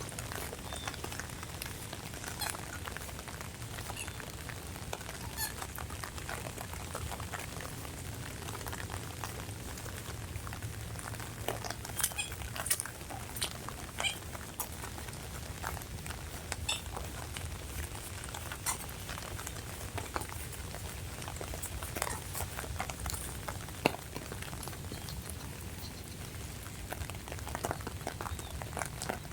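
Steady rain falling, with scattered individual drops ticking sharply over a soft hiss and a low rumble.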